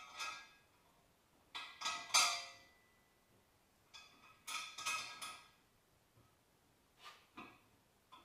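Small metal parts and hand tools clinking and tapping as bolts and nuts are fitted to hold a go-kart dyno's pump on its mount. The taps come in four short clusters, each with a brief metallic ring.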